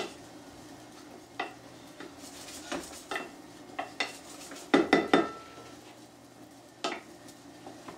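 Wooden spoon stirring bread cubes in butter in a stainless steel pan: irregular scrapes and knocks against the pan, with a quick run of knocks about five seconds in. A faint sizzle of the hot butter sits underneath.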